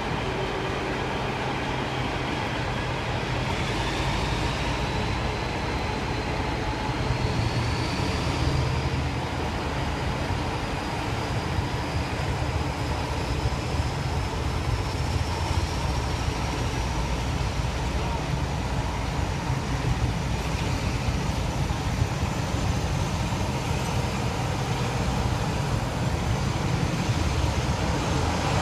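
British Rail Class 47 diesel locomotive, with its Sulzer V12 engine, hauling a train away from a standstill, heard from a carriage window. A steady low diesel drone and rolling wheel-and-rail noise run under a thin whine that climbs steadily in pitch as the train gathers speed.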